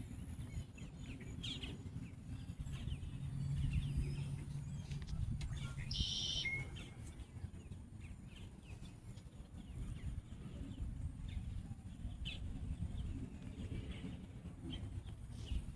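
Birds calling: scattered short chirps over a steady low rumble, with one brief louder call about six seconds in.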